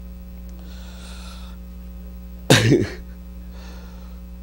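A man's short, loud vocal burst about two and a half seconds in, between faint breaths, over a steady electrical hum in the sound system.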